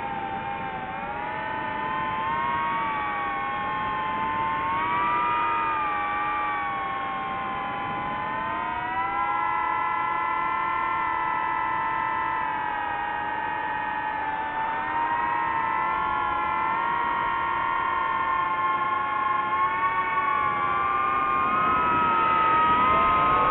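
DJI FPV quadcopter's four motors and propellers whining in flight, several close pitches that drift up and down together with the throttle. The pitch holds steady through the middle and rises near the end.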